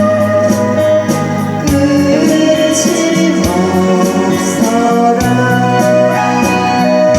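Karaoke music with a steady beat and a voice singing along.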